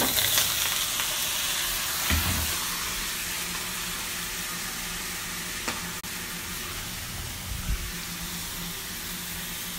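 Broccoli florets sizzling in hot olive oil in a frying pan. The sizzle is loudest as they drop in and settles to a steady hiss, with a couple of soft knocks.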